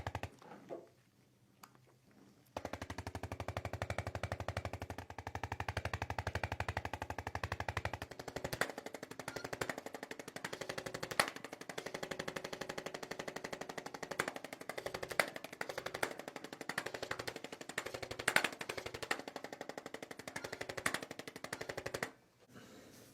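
Electric percussion massager hammering rapidly and evenly against the body's muscles. It stops for about two seconds just after the start, then runs on; about eight seconds in its deep low rumble drops away, and a few sharper knocks stand out later.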